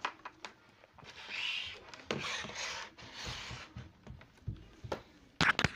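Analog multimeter being handled and its range selector knob turned: rubbing and scraping noise, then a quick run of sharp clicks near the end.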